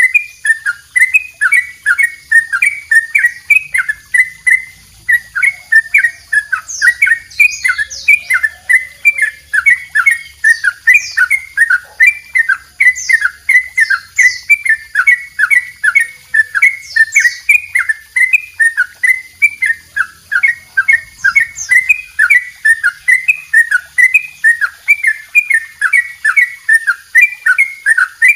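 Yellow-vented bulbul (trucuk) singing its long 'double roll' song: an unbroken run of quick, repeated whistled notes, about three a second, with a few thin higher chirps mixed in.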